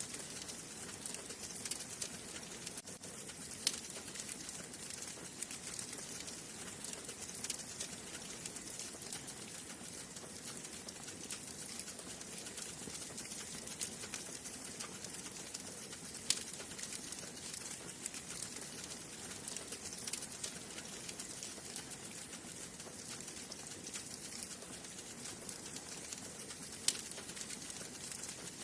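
Wood fire burning in a fireplace, crackling steadily over a soft hiss, with a few louder pops, about a third of the way in, a little past halfway and near the end.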